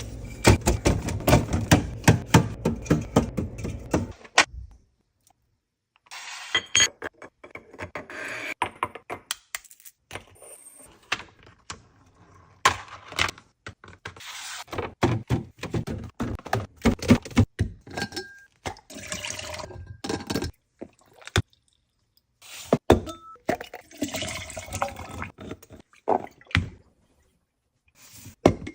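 Restocking a fridge: containers, bottles and packaging knocked, tapped and set down on the shelves in quick clattering runs, broken by a few short silences.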